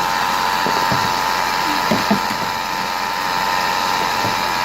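Mercedes-Benz B200 (W245) engine bay with the engine running and a steady high-pitched whine, the noise being traced to the alternator.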